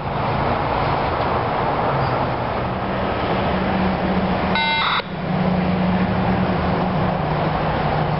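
Steady low diesel drone and rumble of a CSX GP39-2 freight locomotive waiting and approaching in the distance, with a short electronic beep about halfway through.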